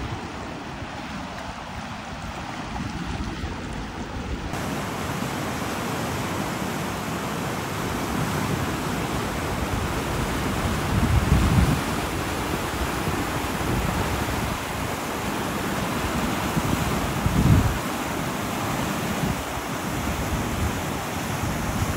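The Aragvi river rushing over shallow rapids: a steady rush of water. Wind buffets the microphone twice in the second half.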